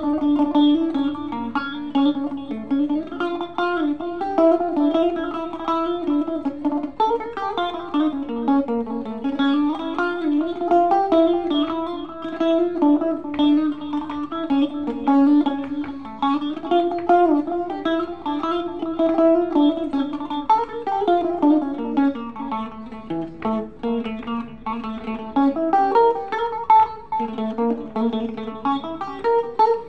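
Stratocaster-style electric guitar played as a melody of single picked notes that rises and falls in pitch, with a few notes sliding down.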